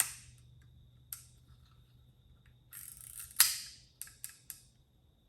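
Voigtländer Vito BL 35mm camera's mechanism worked by hand: a sharp click, another a second later, a short rasp leading into a loud click about three and a half seconds in, then three small clicks. The shutter release and advance seem to be sticking, and the camera won't take a photo.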